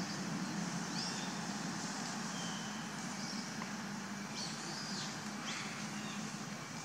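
Steady outdoor background noise with a low hum, and a few faint, brief high chirps scattered through it.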